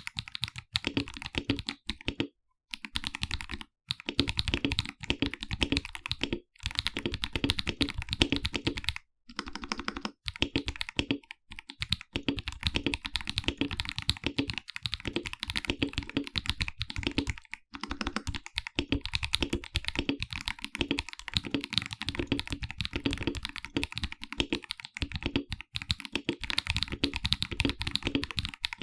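Fast, continuous typing on a KBD67 Lite R2 mechanical keyboard with Akko CS Ocean Blue tactile switches, with a few brief pauses between bursts of keystrokes.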